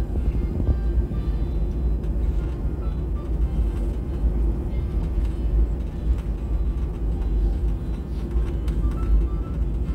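Steady low rumble inside a jet airliner's cabin as it taxis, the engines at idle and the wheels rolling over the apron.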